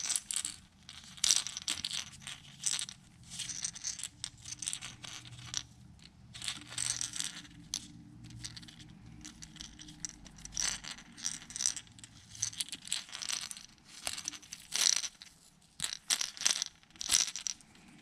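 Blue painter's tape being peeled off the bill of a freshly airbrushed plastic crankbait: irregular crinkling and ripping crackles, with the tape crumpled between the fingers. The tape is the masking that kept paint off the lip.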